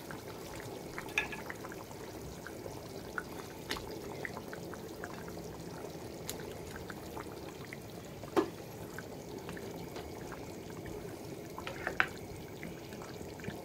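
Meat and tomato sauce simmering in a small square pot, a steady bubbling with scattered small plops as potato chunks are dropped in. There are two sharper knocks, about eight seconds in and near the end.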